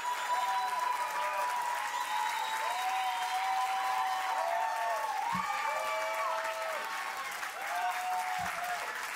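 A crowd of guests applauding, with voices calling out and cheering over the clapping.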